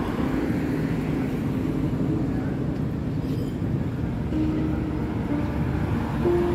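Cars driving past on a village street, a steady rumble of engines and tyres, with soft background music of long held notes.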